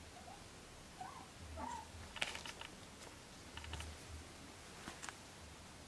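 Guinea pigs moving about: two short, faint squeaks about a second in, then quick runs of light clicking, with soft low thumps.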